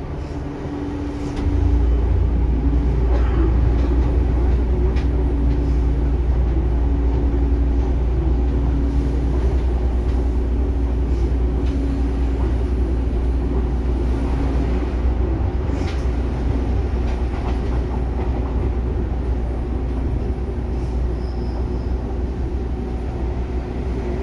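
Seibu 2000 series electric train running, heard from inside the car above the underfloor line breaker, with faint steady hum tones over the running noise. About a second and a half in, a deep low rumble sets in abruptly and stays loud.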